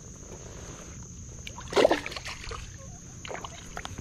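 A small bass splashing into shallow water as it is released from the bank: one loud splash about two seconds in, followed by smaller sloshes. A steady high insect drone runs underneath.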